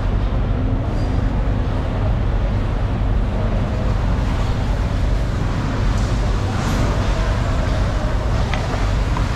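Steady hum and rumble of a busy fish-market hall, with a few faint clicks here and there.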